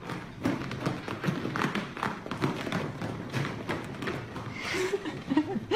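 Irregular soft thumps and taps of pets moving about on an upholstered armchair and a tiled floor.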